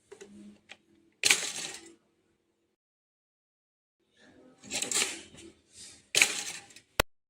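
Pop-up toaster's spring-loaded carriage snapping up with a sharp metallic clack and a short rattle, twice: about a second in and again near the end. A slower rattling comes shortly before the second clack, and a single sharp click closes the window.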